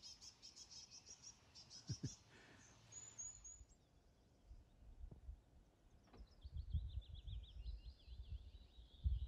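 Small songbirds singing: a quick run of high repeated notes in the first two seconds, a few short high notes around three seconds, then a longer zigzagging song from about six seconds in. A low uneven rumble sits underneath in the second half.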